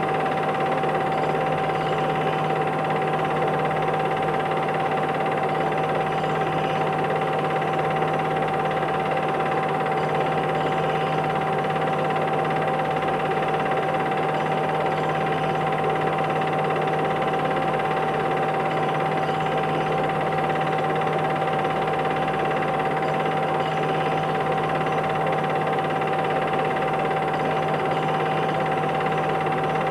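Steady mechanical whirring noise with a constant high-pitched tone over a low hum, unchanging throughout.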